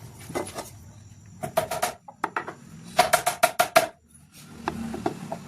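Quick runs of sharp wooden knocks with a short ringing tone, in two clusters of rapid strikes with pauses between.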